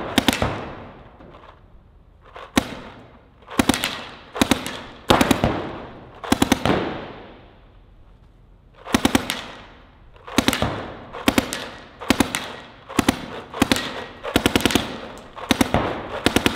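Paintball marker firing in short rapid bursts of several shots each, with a pause of about two seconds near the middle. Each burst rings on with echo from the enclosed hall.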